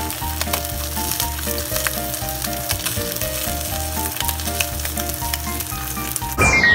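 A thick-cut slab of smoked bacon frying in a hot nonstick pan, sizzling steadily with frequent small crackles of popping fat. A short, loud falling swoosh comes near the end.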